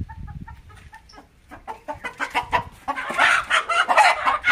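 Chickens in a coop clucking softly, then breaking into loud squawking from about two seconds in as a rooster is grabbed.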